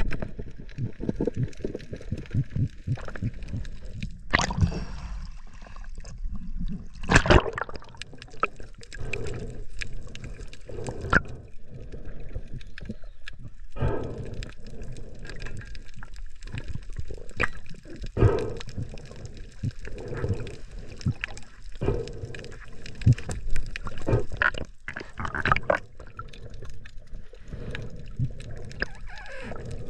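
Water heard underwater through a diving camera's housing: uneven sloshing and gurgling with scattered knocks and clicks.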